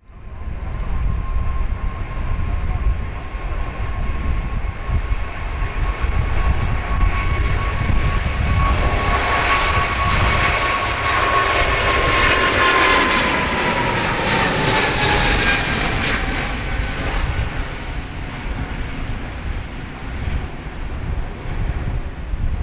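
Boeing 777-200ER's twin jet engines at takeoff power as the airliner rolls down the runway and lifts off past. The roar builds to its loudest a little past halfway, and the engine whine drops in pitch as the aircraft goes by.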